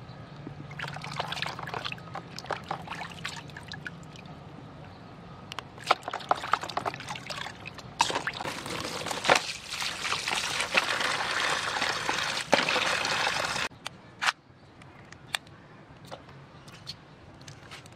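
Water splashing and sloshing in a plastic basin as live mud crabs are scrubbed by hand, then water pouring steadily for about five seconds before stopping suddenly, followed by light scattered knocks as the crabs are handled.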